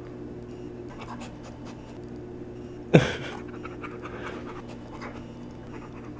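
Pit bull–Rottweiler mix dog panting over a steady low hum. About halfway through there is one short, loud sound that drops sharply in pitch.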